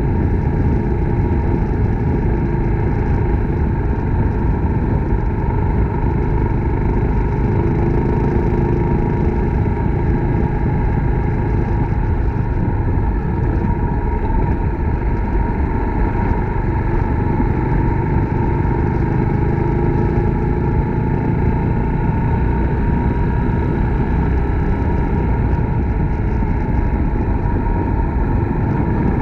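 Suzuki Grasstracker Big Boy's single-cylinder four-stroke engine running steadily while the motorcycle is ridden, with no break or sudden change.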